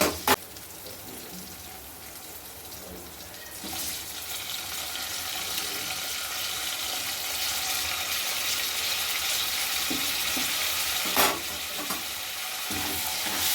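Food sizzling in a hot frying pan, with a utensil knocking against the pan twice at the start and once near the end. The sizzle grows louder about four seconds in.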